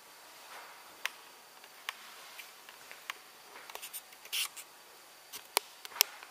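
Handling noise from a handheld camera: scattered small clicks and brief rustles of fingers on the camera body, the sharpest click near the end.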